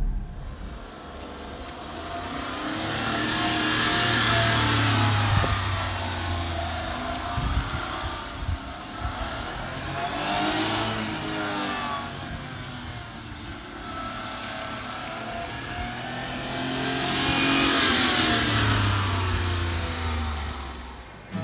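Honda Acty HA4 kei truck's small three-cylinder engine revving as the truck drives round and passes by twice, loudest about four seconds in and again late on, its pitch rising and falling.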